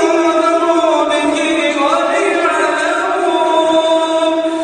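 Male Quran reciter's voice in melodic tajweed recitation, holding a long drawn-out note without words, stepping up in pitch about two seconds in.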